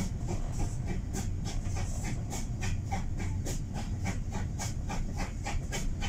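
Steam locomotive exhaust chuffing in a steady rhythm, about four beats a second, over the low rumble of the carriage running on the rails, heard from inside a coach.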